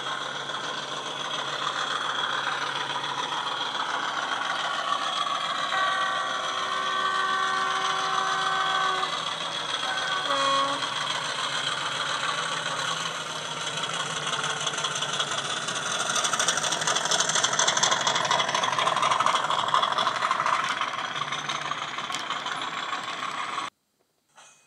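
Hornby Class 50 model locomotive's ESU LokSound DCC sound decoder, playing a Class 50 English Electric diesel engine through a small 4-ohm ESU passive radiator speaker. The engine runs with its turbocharger whine audible. A horn is held for about three seconds around six seconds in, and a short horn note follows a second later. The engine and turbo build louder in the second half, and the sound cuts off abruptly about a second before the end.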